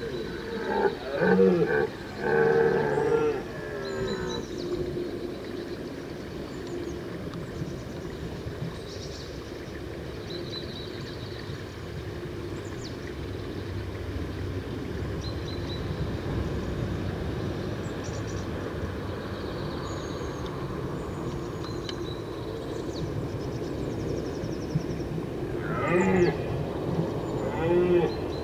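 Red deer stag roaring in the rut, heard from about 850 m away through a parabolic microphone. There is a run of deep roars in the first four seconds and two more near the end.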